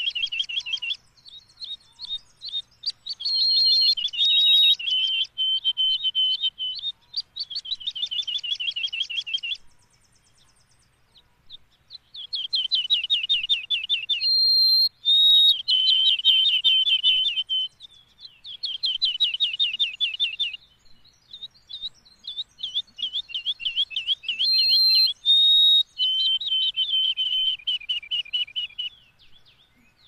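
Songbird singing high-pitched, rapid chattering trills in phrases a few seconds long, repeated with short pauses and one silent gap of about two seconds roughly a third of the way in.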